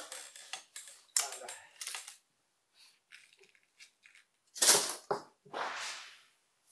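Break-barrel air rifle being handled and cocked: a run of light clicks and rustles, then two sharp metallic clacks a little past the middle and a short scrape, as the barrel is broken open and the spring piston is cocked.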